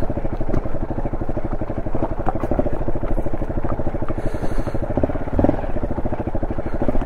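Honda SL230's air-cooled single-cylinder four-stroke engine, fitted with an aftermarket muffler and a rejetted carburettor, running steadily under way on a rough dirt track, its firing pulses coming fast and even.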